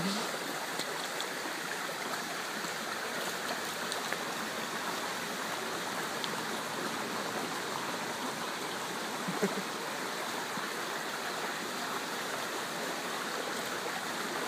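Stream water rushing steadily over rocks in shallow, fast-flowing water. A brief short sound stands out about halfway through.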